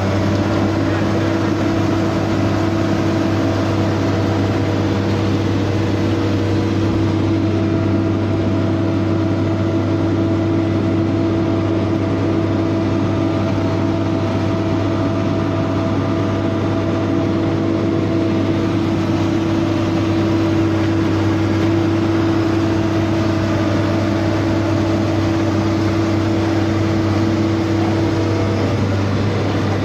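Asphalt paver's diesel engine running at a steady speed, a loud, even drone heard close up from on board the machine.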